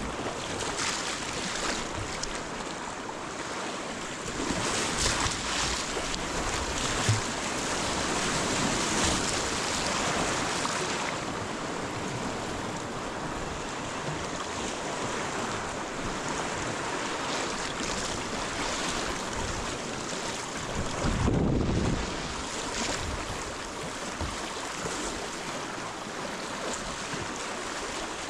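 River water rushing and splashing around a kayak on a riffle, with wind noise on the microphone. A dull low thump comes about three-quarters of the way through.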